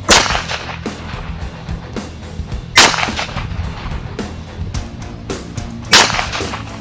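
Three shots from a CZ 82 pistol in 9×18 Makarov, about three seconds apart, each followed by a brief echo.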